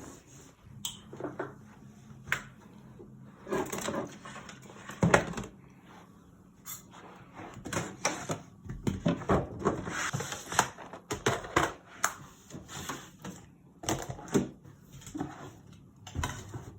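Irregular knocks, clicks and rattles of household objects being handled and put down, as in tidying up a room.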